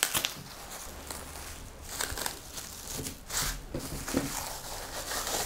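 Cling film crinkling and crackling in irregular bursts as hands fold it around a disc of shortcrust pastry dough and press it flat.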